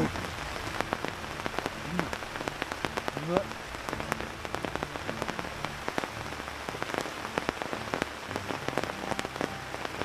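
Heavy rain pattering steadily on a tent's fabric, dense with individual drop hits.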